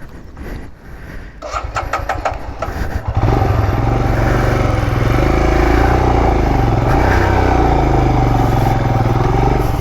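Motorcycle engine starting: a short spell of cranking, then it catches about three seconds in and runs loudly, with the revs rising and falling.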